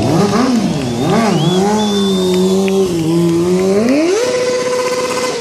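Sportbike engine revved in quick blips, settling to a steady speed, then rising and held at high revs near the end, as during a stunt.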